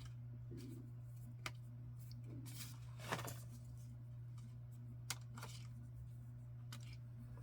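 Paper and card being handled on a work surface: light rustles and a few sharp taps, the loudest about three seconds in, over a steady low hum.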